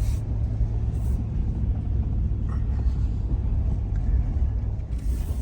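The old Ford's engine and road noise heard from inside the vehicle while driving slowly over icy streets, a steady low rumble with a few brief knocks.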